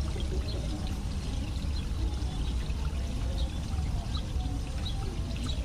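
Steady background of running, pouring water over a low rumble, with short faint high chirps now and then.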